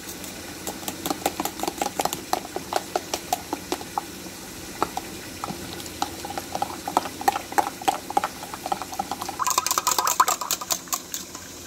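A metal spoon whisking gram flour and fine wheat flour into water in a stainless steel cup, clinking quickly against the cup's sides. The clinks come faster and sharper for a second or two near the end.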